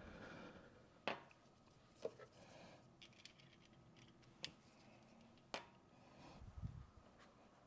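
Near silence in a small room, broken by a few sharp clicks and taps, with a soft low thud near the end: small objects being handled.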